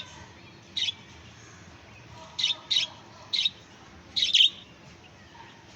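Budgerigar giving short, sharp chirps, about six in all, some in quick pairs.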